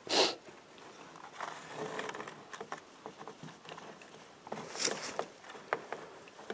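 Aluminium foil pie plates crinkling and scraping, with small clicks, as hands fasten the two plates together with twist ties. There is a loud crinkle at the start and another about five seconds in.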